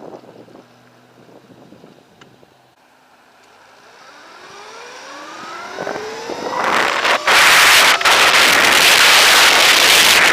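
The electric motor of a Throne SRPNT e-moto whining, rising steadily in pitch as the bike speeds up from slow, then loud wind on the microphone takes over from about two thirds of the way in and drowns it out.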